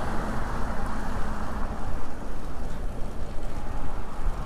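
Steady wind rumble on a microphone riding along on a moving bicycle, mixed with the noise of street traffic.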